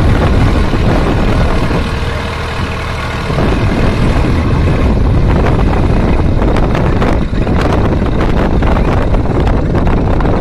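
Massey Ferguson tractor's diesel engine working hard under load as it hauls a heavily overloaded trolley up a sandy slope. The engine eases for about a second around two seconds in, then picks up again.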